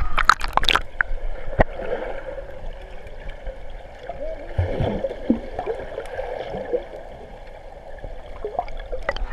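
Water park background: running, gurgling water and faint voices, with a few sharp splashes or knocks in the first two seconds.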